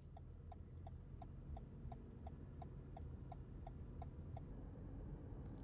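A car's indicator flasher ticking evenly, about three ticks a second, over the low rumble of the car driving on the road; the ticking stops a little over four seconds in.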